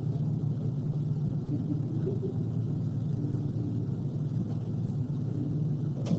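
Steady low rumbling background noise with no speech.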